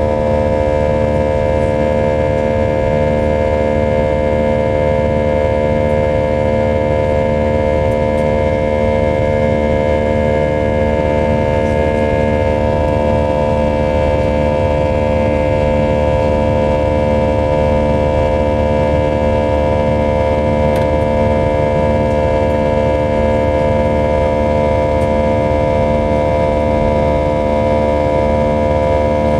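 Airbus A320's IAE V2500 turbofan engine heard from inside the cabin during the climb: a steady roar with several high whining tones held level throughout.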